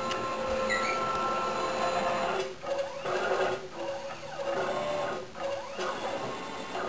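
Stepper motors of a CNC router whining as they drive the axes along ball screws. The pitch glides up and down with each move, and the sound dips briefly a few times between moves.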